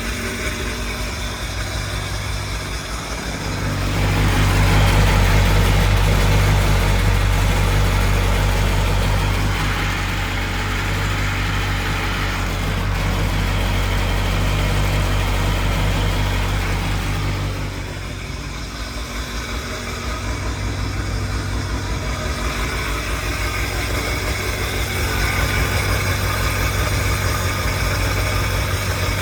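Rebuilt 951cc two-stroke twin engine of a 2002 Sea-Doo Sportster LE jet boat running on its first start after the rebuild. It gets louder about four seconds in, eases back, dips again after about eighteen seconds, then picks up once more.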